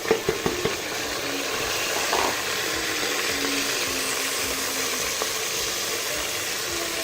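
Grated onion frying in hot oil with whole spices, a steady sizzle, with a few sharp knocks in the first second as it goes into the pan.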